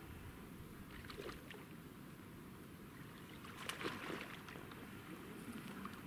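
Faint rustles and small knocks as an inflatable boat is handled among reeds, loudest in a short cluster about four seconds in.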